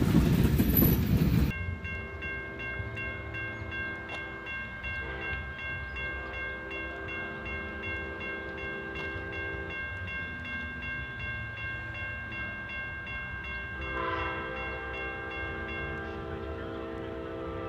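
A freight train rumbling past on the rails, cut off about a second and a half in. Then a distant locomotive horn sounds several long blasts, a steady chord, while a grade-crossing bell rings on throughout.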